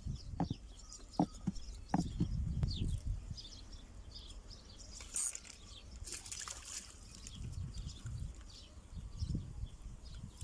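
Water splashing at the pond's surface a few times near the middle, over a steady low rumble, with a few faint clicks in the first two seconds.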